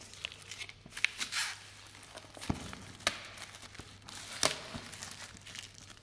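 Clear plastic shrink-wrap being torn and peeled off a cardboard headphone box, crinkling, with several sharp crackles.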